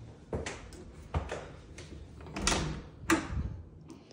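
An interior closet door's knob and latch clicking and the door being swung open, heard as a series of knocks and clicks, the loudest about two and a half and three seconds in.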